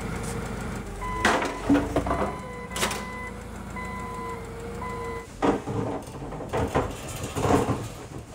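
A forklift running with a low rumble, its alarm beeping several times, while sharp metal clanks and knocks come from the burned car shell being shifted on the forks and dolly, loudest in the second half.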